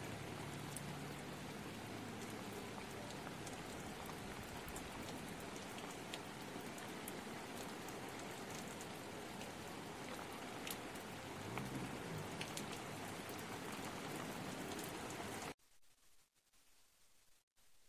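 Heavy rain pouring down onto floodwater and pavement, a dense steady hiss with scattered sharp drop hits. It cuts off suddenly near the end.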